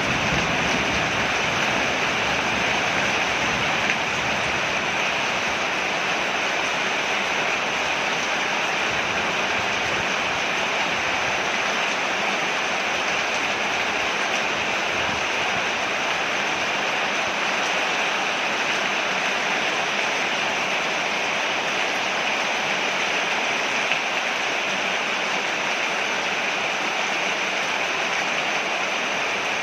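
Steady heavy rain falling on a porch, a continuous even hiss of water.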